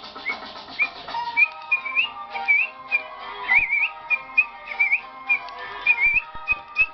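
A person whistling a tune in a string of short, wavering high notes over a karaoke backing track.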